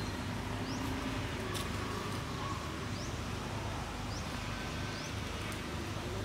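Outdoor ambience: a steady low rumble with short, high, rising chirps about once a second.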